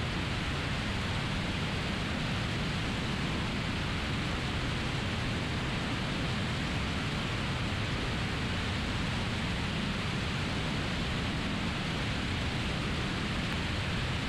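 Steady rushing noise of a Piper Archer single-engine light aircraft in cruise flight: engine, propeller and airflow, holding an even level throughout.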